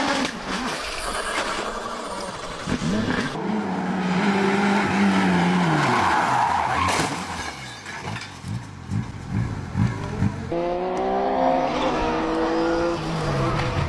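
Rally cars driven flat out, their engines revving up and dropping back through gear changes, with tyre skid noise. The sound changes abruptly twice as the clips cut.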